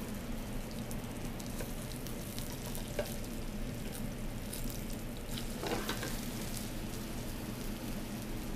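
Breaded haddock fillet frying in drawn butter in a hot sauté pan: a steady sizzle. A couple of brief clicks and scrapes come from a spatula turning the fillet.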